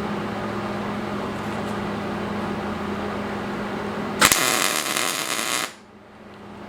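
Steady electrical hum, then about four seconds in a sudden loud, harsh hiss from a welding arc joining the steel armor plates, lasting about a second and a half and cutting off sharply.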